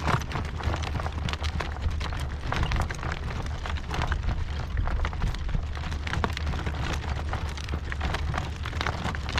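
Gale-force wind buffeting the microphone: a heavy, steady low rumble with irregular crackling pops throughout.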